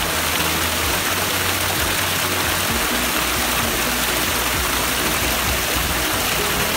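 Steady rushing of water, an even hiss with no breaks.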